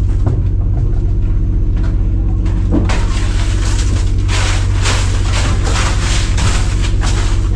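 A fishing boat's diesel engine running with a steady low drone, while crushed ice is tipped from a basket into the fish hold in a couple of rushing, rattling pours, the longest from about three seconds in.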